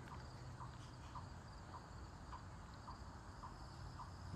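Faint, repeated chirping of a chipmunk, short even chips about two a second.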